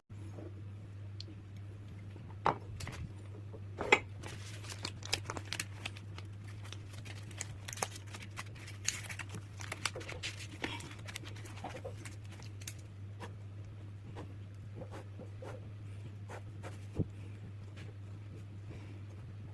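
A steady low hum with scattered light clicks, taps and rustles of things being handled, busiest in the first half, with a few sharper knocks.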